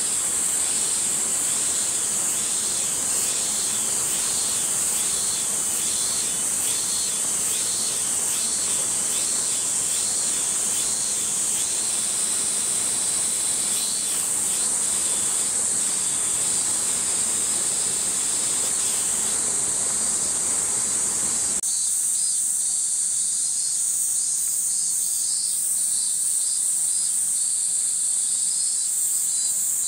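Summer cicadas chorusing: a loud, steady high-pitched drone with a pulsing call repeating about once a second underneath. The low background rumble drops away suddenly about two-thirds of the way through.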